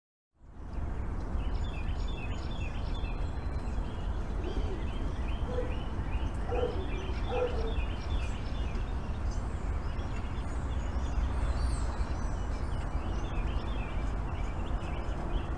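Outdoor ambience of birds chirping over a steady low rumble: a short call repeats about twice a second through the first half, with higher twittering later and a few short lower calls around the middle.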